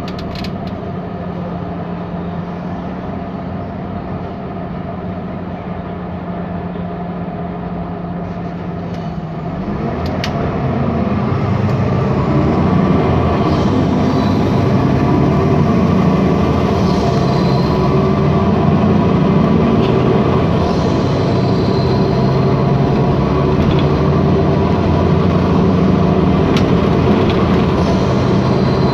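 MAN Lion's City bus with its MAN E2876 natural-gas engine, heard from inside the bus. The engine idles steadily, then about ten seconds in it revs up as the bus pulls away. It keeps accelerating through the gears of the ZF Ecolife automatic, louder than at idle.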